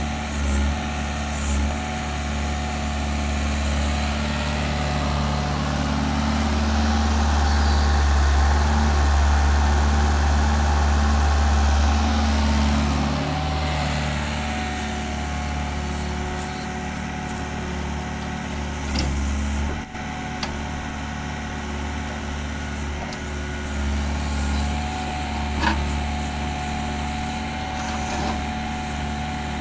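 Doosan DX55 mini excavator's Yanmar 4TNV diesel engine running steadily while the machine digs. It swells louder for several seconds in the first half as the hydraulics are worked, then settles back. A couple of short knocks come in the second half.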